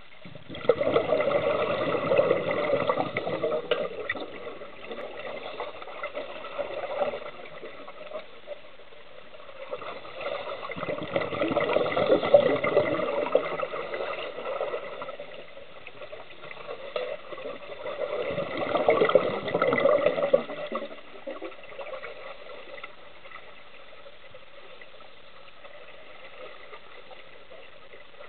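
Scuba regulator exhaust bubbles heard underwater: three long bursts of bubbling several seconds apart, a diver's exhalations. Between the bursts there is a faint steady hiss.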